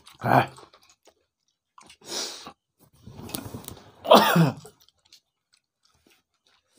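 People eating rice and chicken curry by hand, with loud open-mouthed chewing and smacking. There is a hissy mouth noise about two seconds in and two short voiced sounds from the eaters; the louder one comes about four seconds in.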